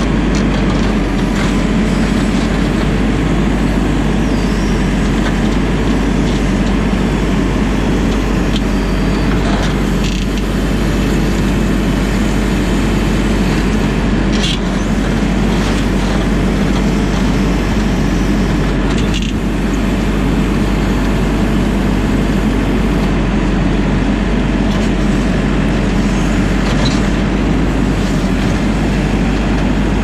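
JCB 4CX backhoe loader's diesel engine running steadily, close up, while the hydraulics swing and move the backhoe arm and bucket. A few brief knocks stand out over the engine.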